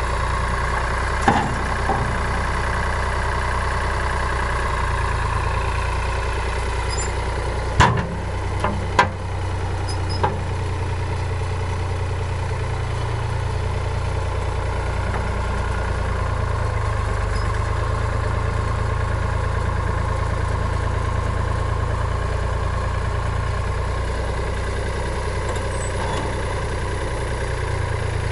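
Farm tractor engine running steadily while its hydraulic bucket arm is worked, with a few sharp knocks, the loudest a pair about eight and nine seconds in.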